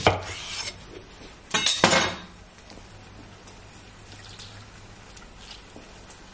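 Kitchen knife cutting a lemon on a hard counter: a sharp knock at the start and a louder clatter of kitchenware about two seconds in, then a quiet stretch with a low steady hum.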